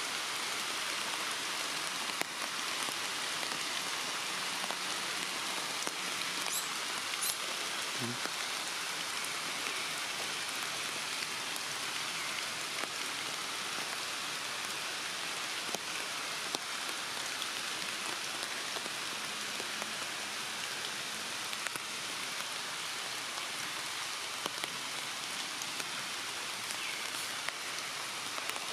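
Steady rain falling on forest foliage, an even hiss with scattered drip ticks.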